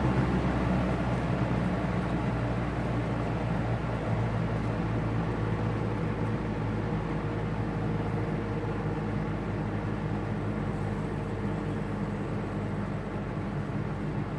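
Vintage Eskimo model 2016 box fan running on medium speed: its shaded-pole motor gives a steady low hum under the rush of air from the blades. It grows gradually quieter as the fan settles down after being switched from high to medium through its choke-coil speed control.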